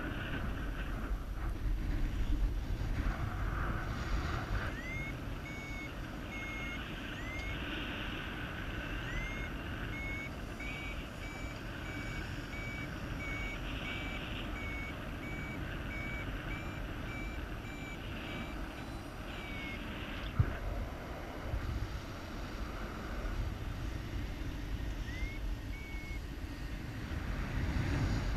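Paragliding variometer beeping: short high tones about two a second, the first of each run gliding up in pitch. This is the vario's climb signal, showing the glider is rising in lift. The beeps stop about two-thirds of the way through and return briefly near the end, over a steady low rush of wind.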